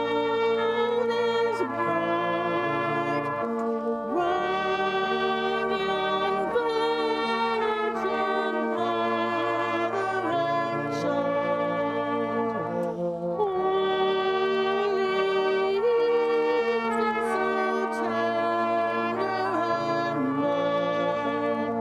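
Brass band playing a slow tune in held chords, with long low bass notes under the melody.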